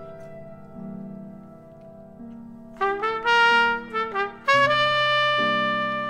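Jazz trumpet over sustained piano chords: the piano alone at first, then about three seconds in the trumpet comes in with a few short notes and settles on a long held note.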